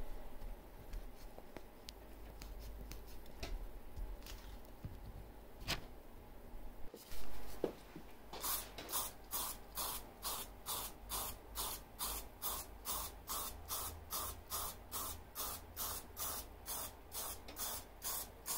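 Aerosol spray-paint can sprayed in short hissing bursts, about two a second, over the last ten seconds. Before that, faint clicks and taps of small parts being handled.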